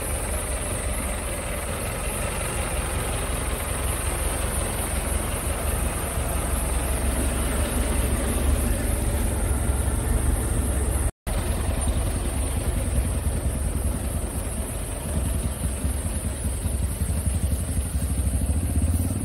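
Old Toyota Land Cruiser jeep engines idling, a steady low rumble heard from beside and inside the 1978 tour jeep.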